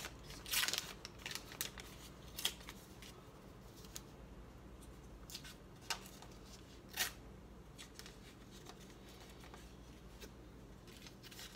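Paper wrapper on a stick of butter crinkling and rustling as it is peeled off. The crackles come at scattered moments, the sharpest about half a second in and again around six and seven seconds.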